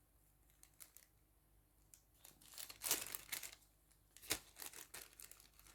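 Plastic packaging crinkling and rustling, with sharp clicks about three seconds in and again a second and a half later, as small plastic accessories are handled; the first two seconds are nearly quiet.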